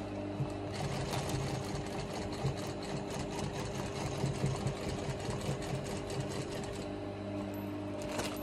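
Singer industrial sewing machine stitching at speed, a fast even needle clatter that starts just under a second in and stops about a second before the end.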